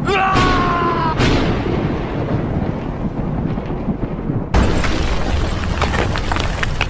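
Dubbed action-film sound effects for a fight: rumbling explosion-like noise with a short falling tone in the first second, then a sudden loud boom about four and a half seconds in that rumbles on.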